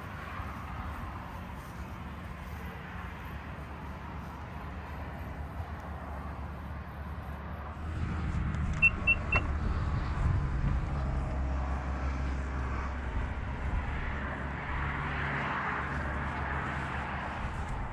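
Three short high beeps from the Renault Rafale about nine seconds in, with a click right after. Under them runs a steady low rumble that grows louder about eight seconds in.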